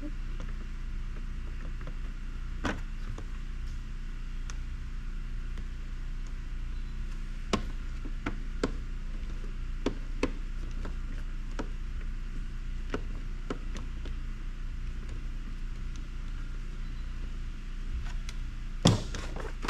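Scattered light clicks and taps of a small screwdriver working at tiny screws in a watch winder's housing, over a steady low hum, with a few louder knocks near the end.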